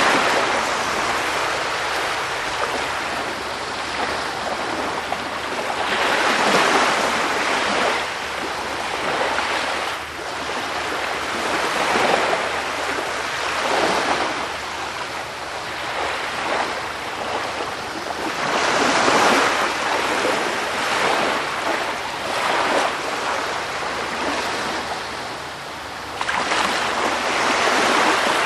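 Sea surf: a steady rush of waves breaking and washing, swelling up every few seconds.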